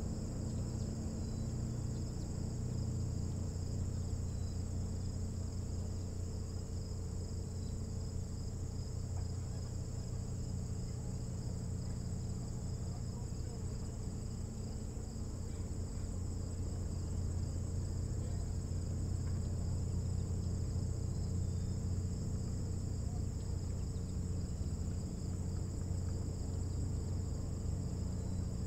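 Crickets chirping in a steady, high, even chorus over a constant low hum.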